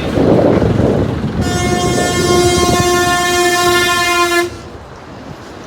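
Heavy rumbling noise, then a loud horn blowing one steady blast of about three seconds that cuts off sharply.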